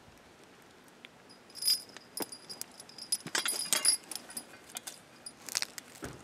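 Metal trace chains and harness hardware clinking and jingling as a draft-horse team's traces are hooked to the doubletree of a disc harrow. A run of sharp, ringing clinks begins about a second and a half in.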